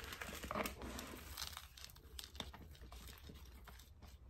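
Hands firming loose potting soil around a newly repotted alocasia in its pot: faint, scattered crackles and rustles.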